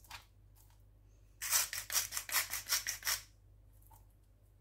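Hand-twisted salt grinder grinding: a quick run of about eight clicking twists, starting about a second and a half in and lasting under two seconds.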